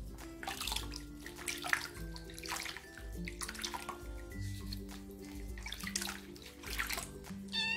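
Bathwater sloshing and splashing in a plastic basin as a kitten is held and washed in it, in repeated splashes every half second to a second, over light background music.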